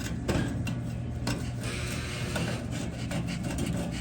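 Rubbing and handling noises with a couple of light knocks, over a steady low hum.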